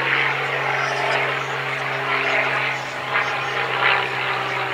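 Steady engine drone: a low hum that holds one pitch throughout, with a rougher, fluctuating rush above it.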